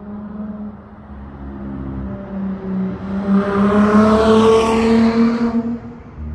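Dodge Charger SXT's V6 with a Flowmaster Super 10 exhaust, accelerating past. Its note rises in pitch and grows louder from about three seconds in, peaks, then drops away near the end.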